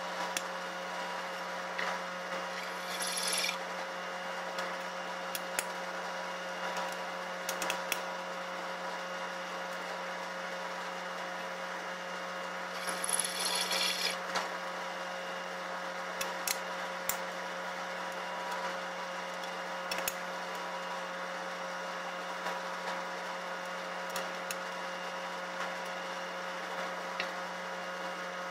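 A steady mechanical hum with a fixed tone runs throughout. Over it come scattered sharp clicks and knocks of tools being handled, and two short bursts of scraping, about three seconds in and again about thirteen seconds in.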